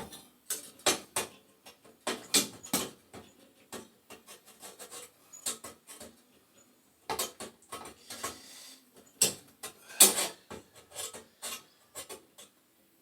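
Metal gas burners of a boiler being handled and slid into their tracks: an irregular run of sharp metallic clicks and knocks, with quieter scraping and rubbing between them.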